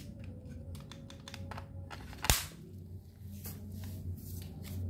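Spring-powered alloy toy Glock 18 pistol being handled: a run of small metal clicks from the magazine and slide, with one sharp loud snap about two seconds in.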